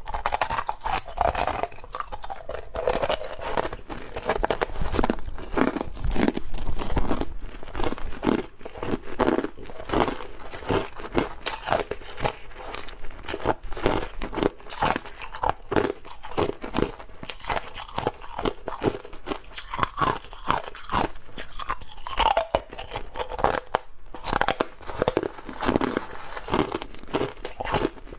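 Close-up crunching and chewing of clear, hard crushed ice, with dense irregular crackling bites and a brief pause about 24 seconds in.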